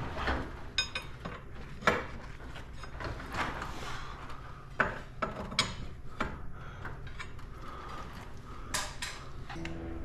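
Irregular metallic clicks and clanks of tools and garage door spring hardware being handled, with a few sharper knocks about 2, 5 and 9 seconds in.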